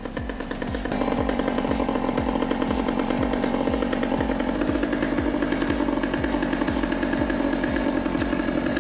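A chainsaw running steadily, starting about a second in and cutting off suddenly at the end, over background music with a steady low beat.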